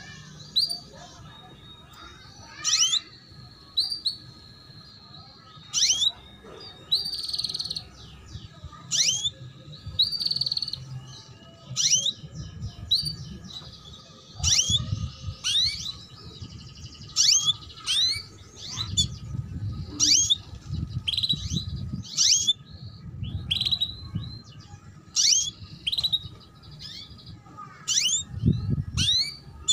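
Female canary giving repeated 'cuit cuit' calls: short high chirps that slide quickly downward, about one a second, with a few longer held notes in between.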